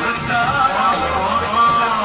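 Loud amplified Arabic party music, with a gliding, ornamented melody line led by a singer on a handheld microphone.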